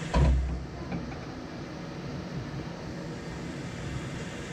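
A frying pan of prawns knocked down onto the gas hob's grate with a single heavy thump right at the start, followed by a steady hiss from the burner and the frying.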